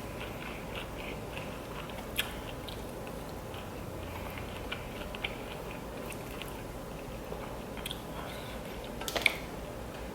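A person chewing and biting crunchy food close to the microphone: scattered crisp clicks and crunches, a sharper one about two seconds in and a louder cluster near the end.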